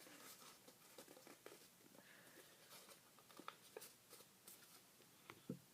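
Faint rustling and creasing of a sheet of paper being folded by hand, with a few soft scattered ticks and one slightly louder one near the end; otherwise near silence.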